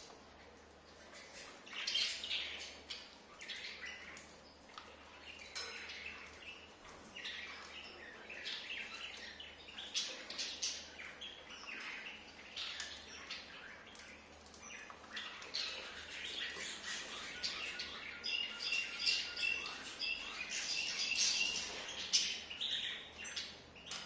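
Cockatiels chirping in short calls while they feed, with a run of repeated chirps near the end. Under the calls are many small, sharp clicks of seeds being cracked and husked in their beaks.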